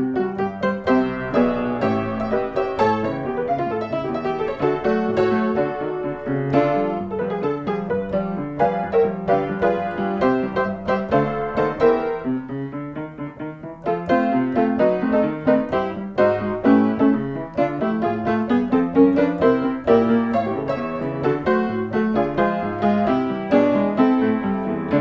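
Background music led by piano, a flowing line of notes; it thins and softens about twelve seconds in, then picks up fuller again about two seconds later.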